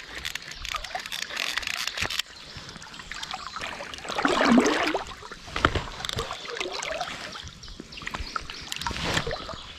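River water splashing and sloshing around a hooked trout as it is played on fly tackle, loudest about four and a half seconds in.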